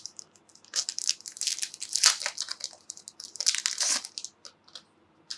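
Plastic wrapping crinkling and tearing in crisp clusters as a deck of game cards is unwrapped, thinning to a few light crackles near the end.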